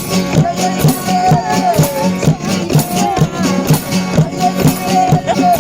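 Music with a steady beat and shaker percussion, and a pitched melody line or voice over it.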